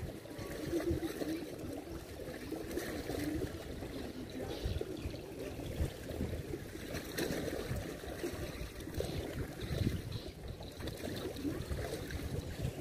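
Water lapping and trickling, an irregular choppy splashing with no steady tone.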